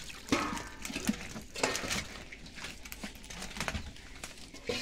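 Irregular rustling and light slapping of a mesh fishing net as hands sort a pile of netted tilapia in it, with a few sharper knocks, one about a third of a second in and another near the end.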